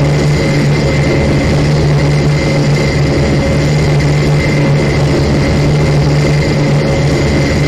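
Airplane engines droning steadily, a loud constant hum with a few steady higher tones above it and no change in pitch.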